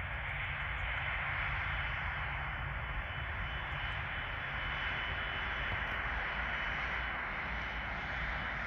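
Airbus A330-200's twin jet engines running at taxi power as the airliner taxis: a steady rush of jet noise with a thin high whine over a low rumble.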